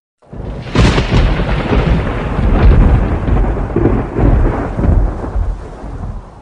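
Thunder with rain: a sharp crack just under a second in, then a long low rumble over a steady hiss, slowly fading out near the end.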